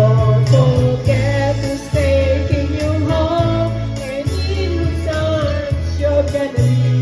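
A woman singing a melody into a handheld microphone over a music backing track with held bass notes, karaoke-style.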